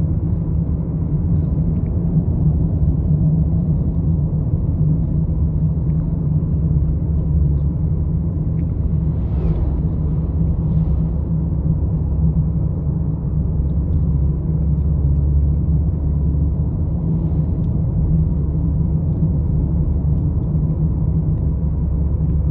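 Steady low road and engine rumble inside the cabin of a Volkswagen Jetta 1.4 turbo cruising at an even speed, with no revving. A faint, brief rush of noise comes about ten seconds in.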